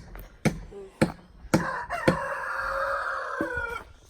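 A rooster crowing once: one long call of about two seconds, starting about a second and a half in. Behind it are sharp knocks about twice a second.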